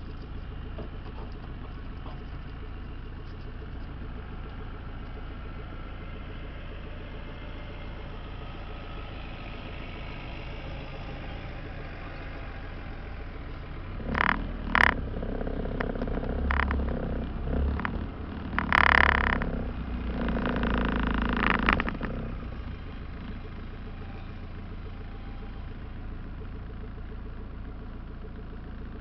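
Off-road jeep engine idling with a steady low hum. About halfway through it revs and the vehicle clatters for several seconds, with a few sharp knocks and a loud surge near the middle, then it settles back to idle.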